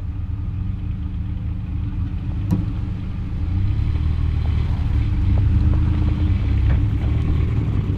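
A vehicle engine running under load as a van is driven out of deep snow with a push. It grows louder about three and a half seconds in, and there is a single sharp click about two and a half seconds in.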